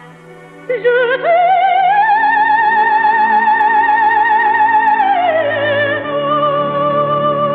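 Operatic soprano holding a high note with wide vibrato for about four seconds, then sliding down to a lower held note, over orchestral accompaniment.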